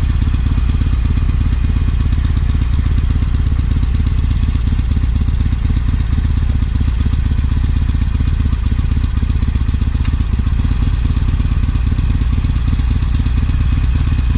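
Harley-Davidson Sportster Iron 883's air-cooled V-twin engine idling steadily, with no revving.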